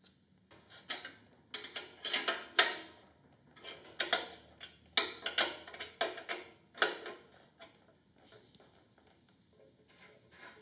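Ratchet wrench clicking in short bursts of strokes as bolts are tightened. The clicking stops about seven seconds in.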